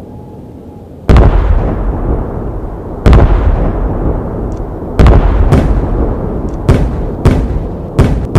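Fireworks bursting: about eight loud bangs, each trailing off in a low rumble. The first comes about a second in, and the bangs come closer together toward the end.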